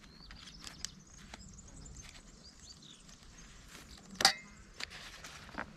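Hands working a brushcutter's trimmer head while threading square nylon line through its exit holes: faint plastic clicks and handling noise, with one sharp click about four seconds in.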